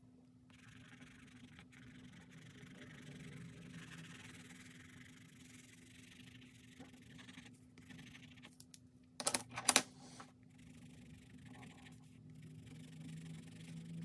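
Colored pencil scratching and rubbing on sketchbook paper as it shades in small strokes. A few sharp knocks come close together about nine seconds in.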